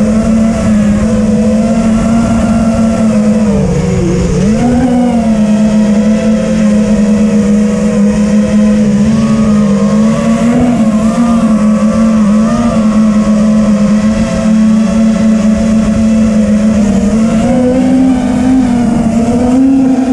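TBS Vendetta racing quadcopter's brushless motors and propellers whining steadily, the pitch dipping and coming back up about four seconds in and rising again near the end as the throttle changes.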